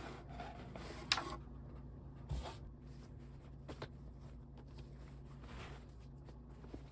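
Faint handling sounds: a few short clicks and knocks, the sharpest about a second in and a duller low knock a little after two seconds, with soft rustling over a low steady hum.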